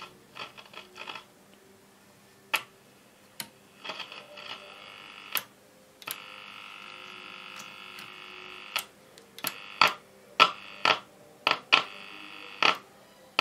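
1950 HMV C13C valve radio crackling through its loudspeaker: irregular sharp pops and clicks, with a steady hiss coming up about six seconds in and dropping out near the end. The crackling is typical of dirty switch contacts.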